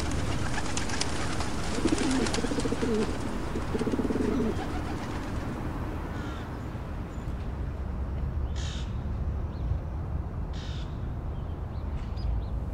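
Pigeons cooing, two short coos about two and four seconds in, over a steady low rumble of wind, with two brief hissing bursts later on.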